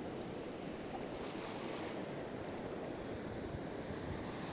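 Ocean surf breaking and washing up the beach in a steady wash of noise.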